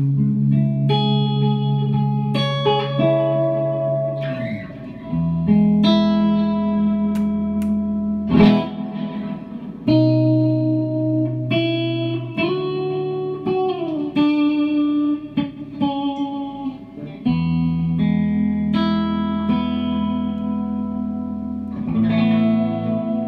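Electric guitar played through a 1969 Watkins Copicat tape echo: sustained notes and chords, with a string bend up and back down about halfway through. The tape loops are not spliced perfectly, which the restorer says gives the echo some wow.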